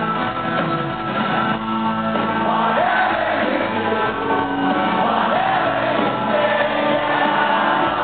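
Live rock band playing, with acoustic guitar and drums under a male lead singer at the microphone, and the crowd singing and shouting along close by, heard from among the audience.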